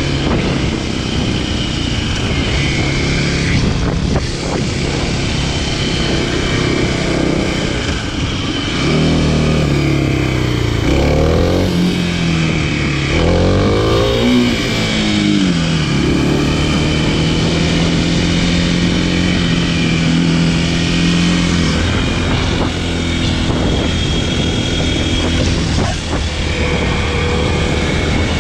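Kawasaki KLX300SM supermoto's single-cylinder four-stroke engine running under way at a steady cruise. The engine note rises and falls several times between about nine and sixteen seconds in, then settles back to a steady pitch.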